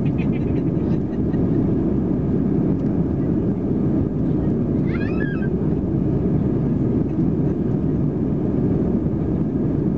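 Steady cabin noise of an Airbus A320-214's CFM56-5B turbofan engines at climb power, heard from a window seat over the wing, a dense low rumble with hiss. About halfway through, a brief high wavering sound rises over it for about half a second.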